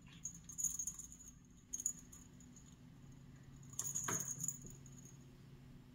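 A hanging cat toy jingling and rattling in three short bursts as a cat bats at it.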